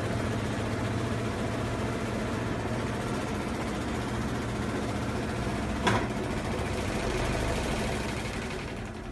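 A steady low mechanical hum with a single sharp click about six seconds in, fading near the end.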